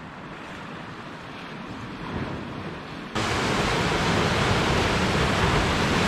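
Sea waves washing on a pebble shore, mixed with wind. The noise is steady, then jumps abruptly louder a little past halfway.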